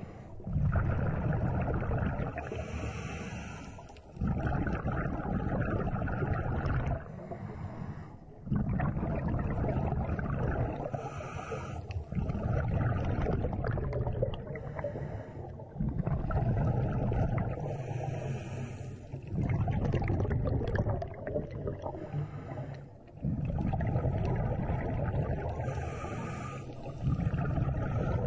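Scuba diver breathing through a regulator: long rumbling, gurgling runs of exhaled bubbles with short breaks between them, and a hiss from the regulator about every seven or eight seconds.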